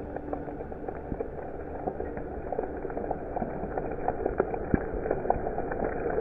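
Hailstorm with heavy rain: a steady wash of rain on wet ground, broken by many irregular sharp ticks and thuds of hailstones striking the ground and leaves.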